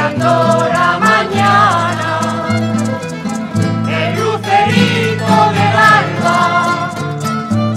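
A rondalla playing a Spanish folk song: guitars and round-bodied Spanish lutes plucking and strumming over a stepping bass line, with a violin carrying a wavering melody.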